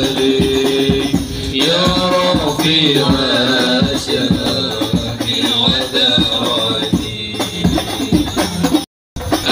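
Men's voices singing a devotional Islamic chant (sholawat) together, over steady hand percussion with jingles; the sound cuts out for a moment near the end.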